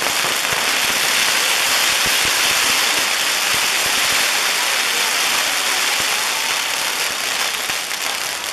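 Ground firework wheel's fountains burning with a steady, loud hiss, with a few scattered pops; the hiss eases slightly near the end.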